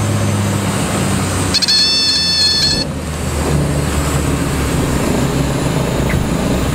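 Cabin noise of a Columbia 350 light aircraft on landing: its six-cylinder Continental IO-550 engine and propeller droning low and steady with wind noise. About a second and a half in, a high steady warning tone sounds for about a second, typical of the stall warning horn in the flare just before touchdown.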